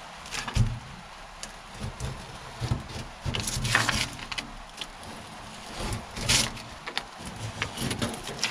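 A blade cutting a paper sanding disc down to size, in irregular scraping strokes, with light knocks from handling the disc and backing pad on the bench.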